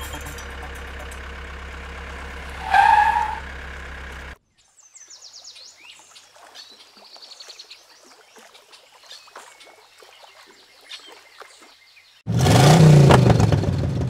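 A steady low hum with a short rising tone, then a sudden cut to birds chirping outdoors. Near the end a loud rumbling sound starts abruptly, its pitch rising and then falling.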